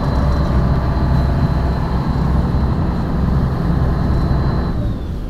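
Wooden dhow's inboard engine running steadily under way, a loud low rumble with a thin high whine above it, easing off slightly near the end.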